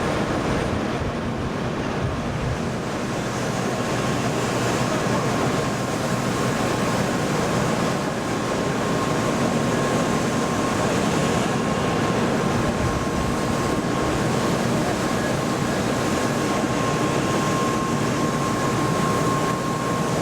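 Shinkansen N700A train passing over a level crossing: a steady, even rumble of the moving train, with a thin steady whine running through it.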